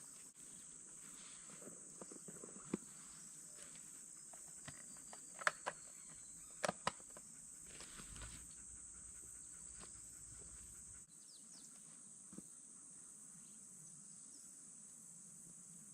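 Steady high-pitched insect chorus, with a few sharp clicks and knocks, the loudest in a quick pair about halfway through.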